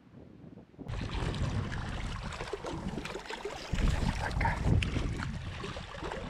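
Water splashing and sloshing against shore rocks as a landing net scoops up a trout that thrashes in it, with wind buffeting the microphone. The splashing starts about a second in and is loudest around four to five seconds in.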